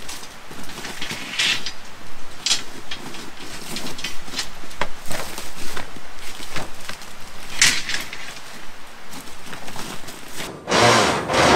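Footsteps and rustling in dry leaves and gravel, with scattered knocks and clicks from handling things. About ten and a half seconds in, the sound cuts off abruptly and a louder clattering scrape begins.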